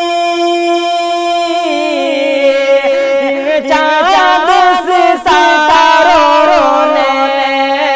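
A man singing a naat, an Urdu devotional song: a long held note, then from about a second and a half in, ornamented runs that waver up and down in pitch.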